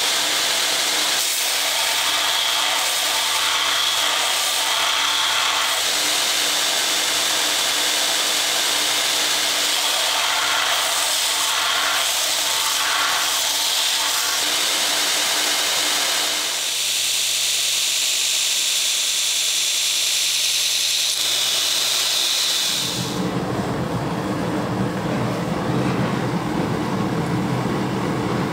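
Belt grinder running, with a high-carbon steel knife blade being ground against the belt: a steady, high-pitched grinding hiss that changes texture partway through. About twenty-three seconds in it gives way abruptly to the steady, lower roar of a gas forge burning.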